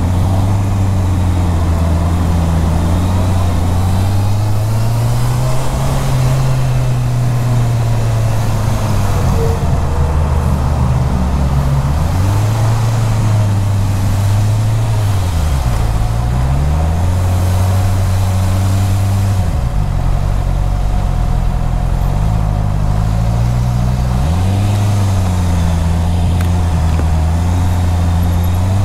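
Honda CB650R's inline-four engine running at low road speed, its pitch holding steady for stretches and sweeping down and back up a few times as the throttle is closed and opened again.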